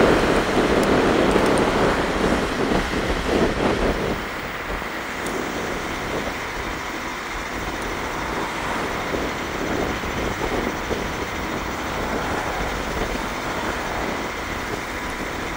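Wind rushing over the microphone and road noise while riding a Bluetran Lightning electric scooter near its top speed. The rush is loud for the first four seconds, then drops to a steadier, quieter level.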